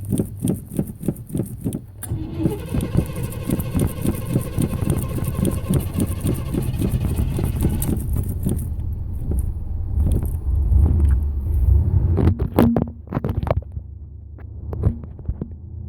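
A vehicle engine being cranked over and over by its starter in a hard start, with an even, rapid churning rhythm for several seconds. About ten seconds in, a louder low rumble comes in for a few seconds, then drops away.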